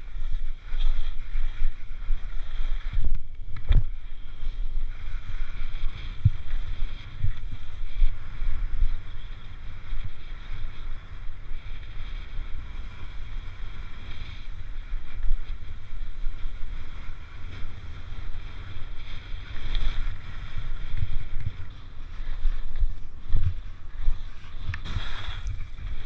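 Wind buffeting a helmet-mounted GoPro as the skier runs downhill, a steady low rumble under the hiss and scrape of skis on snow. A sharp knock comes about four seconds in, and a louder hissing scrape of the skis throwing up snow comes near the end.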